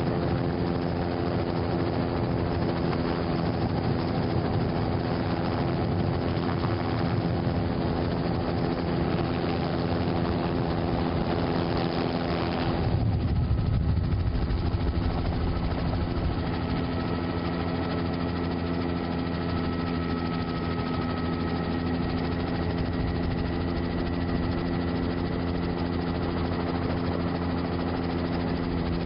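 Helicopter rotor and engine running steadily in flight, a constant drone. About 13 seconds in a low rumble swells briefly, and from then on a faint steady high whine sits over the drone.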